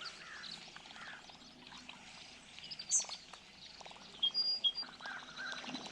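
Birds chirping and calling in the background, with a few short, sharp sounds; the loudest comes about three seconds in.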